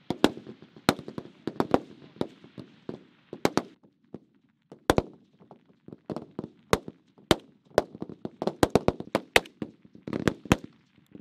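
Rifle fire from M16-pattern 5.56 mm service rifles, several shooters firing single shots at once, so the reports come unevenly, about twenty in all, sometimes two in quick succession. A steady hiss lies under the first few seconds.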